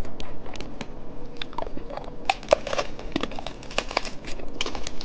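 Plastic candy packaging crinkling and crackling as it is handled and unwrapped, in quick irregular crackles.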